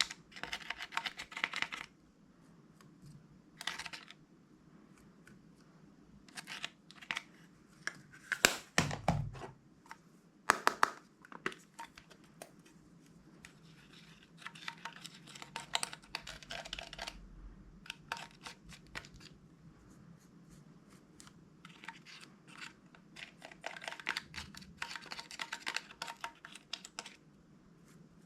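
Slime being pressed, stretched and folded by hand, giving bursts of sticky crackling and popping clicks with short pauses between. The loudest burst, about nine seconds in, has a low thud.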